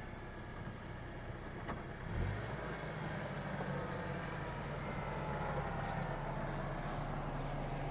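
Dacia Duster 4x4's engine running steadily at low revs while driving, with a faint whine that slowly falls in pitch. A low bump about two seconds in.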